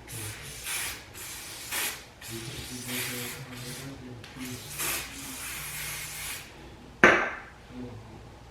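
An aerosol can spraying in a series of short and longer hisses, applying a styling or holding product along the hairline before a wig goes on. A single sharp knock about seven seconds in.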